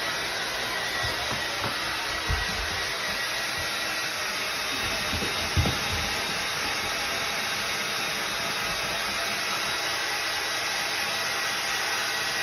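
Hair dryer blowing steadily, a constant rushing noise with a faint thin whine, drying a Shiba Inu's coat after a shampoo. A couple of brief low thumps come through about two and five seconds in.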